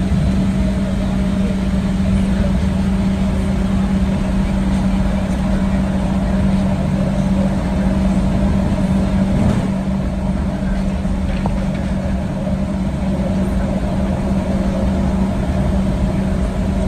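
Steady cabin noise inside a Boeing 737-800 taxiing: an even rumbling hum from the idling engines and air system, with a constant low drone.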